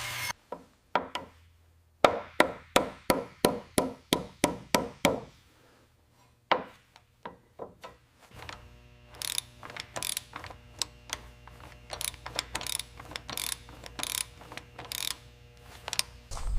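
Hand-tool work: a quick run of sharp clicks, about three a second, then irregular taps over a low steady hum.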